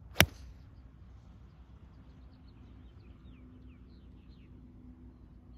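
A golf iron strikes a ball: one sharp, loud click about a quarter second in. Faint bird chirps follow from about two seconds in.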